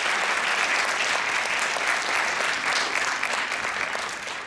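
Audience applauding after the song ends, a dense patter of many hands clapping that eases off near the end.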